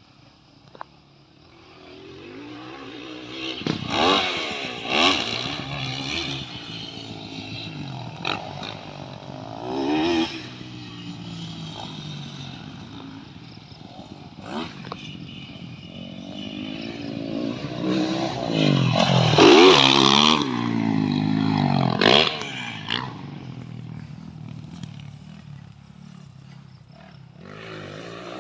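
Motocross dirt bike engine revving up and down through the gears, its pitch rising and falling over and over, loudest about two-thirds of the way in.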